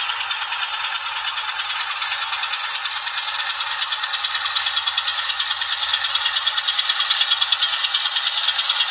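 HO scale ALCO S-4 model switcher locomotive running along the track with a steady, fast rattle that grows louder over the last few seconds as it comes closer.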